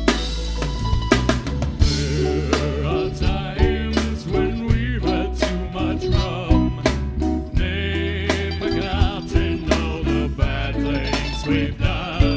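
A band playing: a drum kit beating steadily over a bass line, with a lead melody that wavers with vibrato above it.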